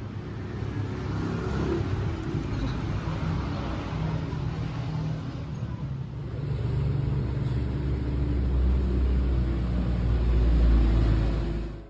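A road vehicle driving, its engine and road noise making a steady low rumble that grows louder in the last few seconds before cutting off suddenly.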